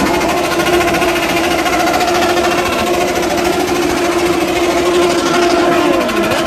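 Several big sport motorcycle engines revved together and held at high revs, a loud steady drone. Near the end the revs drop and climb again.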